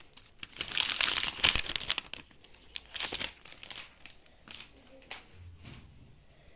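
Thin plastic protective film peeled off an iPad Air's screen and crinkled in the hand: a long burst of crackling starting about half a second in, a shorter one around three seconds, then softer rustles.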